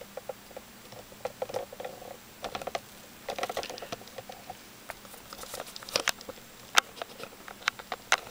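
Scattered light clicks and taps at an irregular pace, with a few sharper clicks in the second half.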